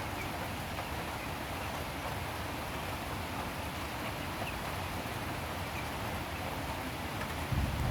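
Steady rain falling, an even hiss. A low rumble comes in near the end.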